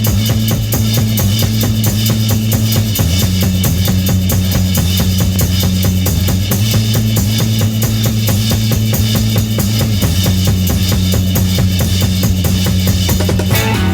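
Instrumental rock intro led by a busy drum kit with bass drum, snare and rimshots over steady low held bass notes that shift pitch about three seconds in. Another pitched instrument joins near the end.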